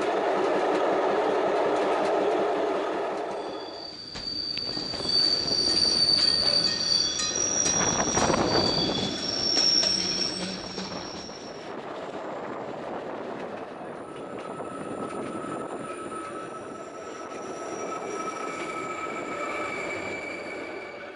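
Metre-gauge electric train running on its rails. A dense rumble gives way, about four seconds in, to long, steady, high-pitched wheel squeal as the wheels grind round a tight curve, with a few knocks in the middle. The squeal sets in again later at lower pitches.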